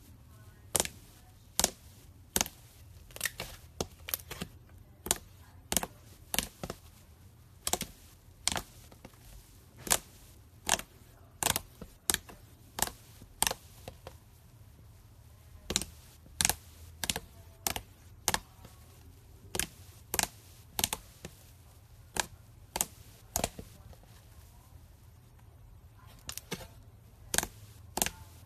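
Fingers poking and pressing into thick white slime, making sharp popping clicks at an uneven pace, about one or two a second, over a low steady hum.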